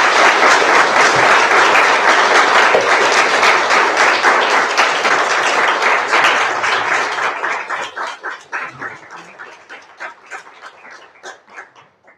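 Audience applauding, a dense run of clapping that thins out after about six seconds into a few scattered claps and dies away near the end.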